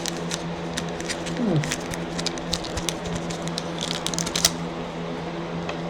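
Trading cards being handled: scattered light clicks and brief rustles of cards and plastic sleeves, over a steady low electrical hum.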